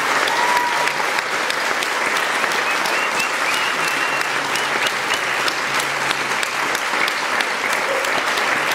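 Audience applauding steadily, a dense patter of hand claps at the end of a tango performance.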